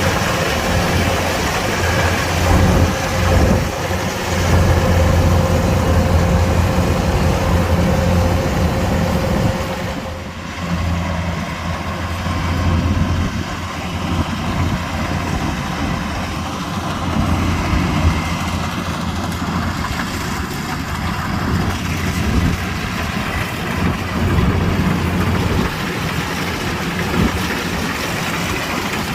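Kubota DC-105X combine harvester's diesel engine running steadily as it works, with a steady whine over the engine hum that stops about a third of the way through.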